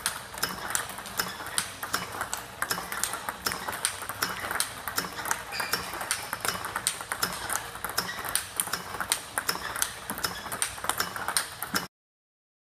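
Table tennis balls clicking in a fast, regular rhythm as a ball robot feeds a player: ball launches, hard bounces on the table and forehand hits off the paddle. The clicking cuts off suddenly near the end.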